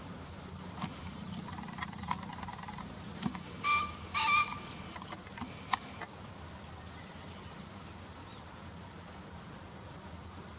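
Male green pheasant crowing: two loud, harsh notes in quick succession about four seconds in, the territorial call of the male. A few short, sharp chirps come before and after it.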